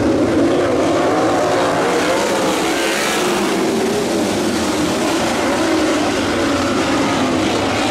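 A pack of sprint car engines running together, several wavering engine notes on top of each other. The sound swells and brightens about three seconds in as cars pass close by.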